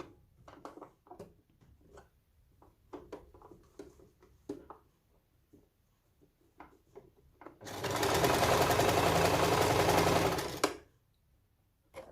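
Sewing machine stopping, then several seconds of light clicks and rustles as the work is handled, then running steadily for about three seconds as it stitches through the mesh wig cap and stopping again; a single sharp click near the end.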